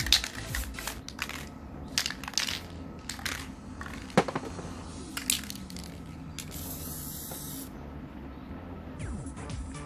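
Aerosol spray-paint cans being handled, with a run of sharp, irregular clicks and knocks, then a single spray burst about six and a half seconds in, a steady high hiss lasting just over a second.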